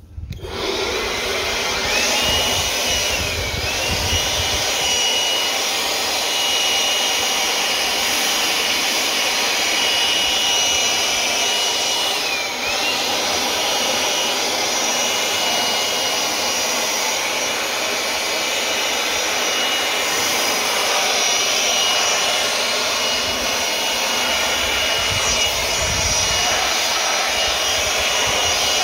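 Ryobi cordless battery blower starting up and running steadily with a high whine, blowing a wet-sanded headlight dry. Its pitch dips briefly three times.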